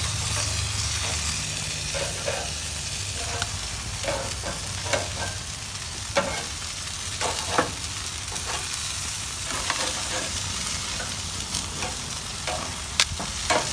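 Tandoori-marinated chicken pieces sizzling steadily on a gas grill's grates, with a few sharp clicks of metal tongs against the grate as the pieces are turned.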